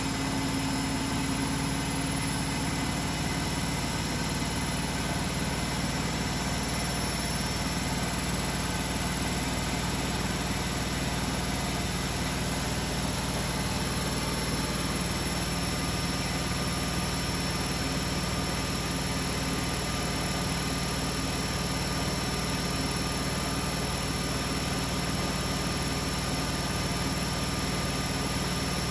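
Beko WML 51211 EL+ front-loading washing machine running steadily, its drum spinning with an even whirr and a faint steady high whine.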